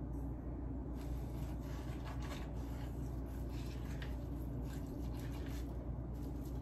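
Soft, irregular rubbing and squishing of hands working a salt and herb dry brine into raw chicken skin, over a steady low hum.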